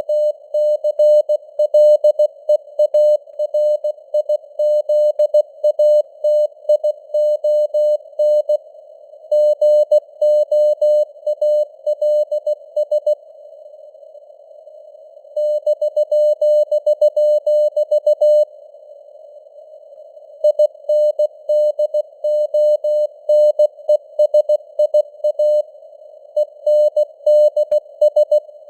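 Morse code sent at 16 words per minute as a keyed mid-pitched sidetone beep over steady simulated radio hiss, breaking off twice for about two seconds between groups of characters.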